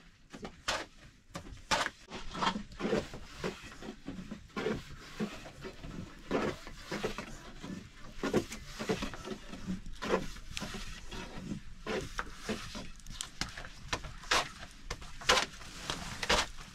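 A thin wooden rolling pin knocking and rolling against a round wooden dough board as flatbread dough is rolled out, an irregular run of quick knocks and taps.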